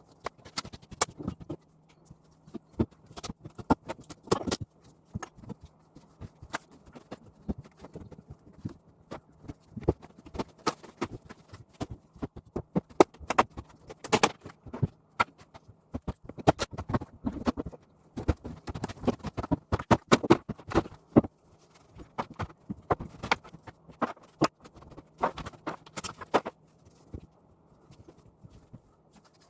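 Irregular sharp knocks and taps from hand tools working on a house wall, some in quick runs and loudest around the middle, over a faint steady low hum.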